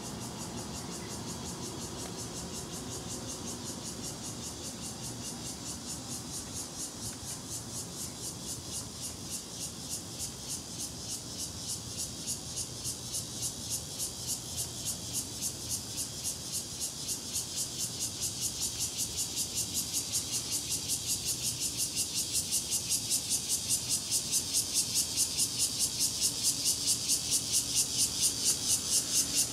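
Cicadas chirping in a high-pitched, rapidly pulsing chorus that grows steadily louder.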